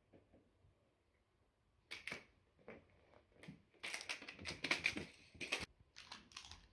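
Plastic candy wrapper crinkling and crackling as a kitten paws and bats the wrapped sweet across a carpet. A run of quick crackles starts about two seconds in and is densest and loudest a little past the middle.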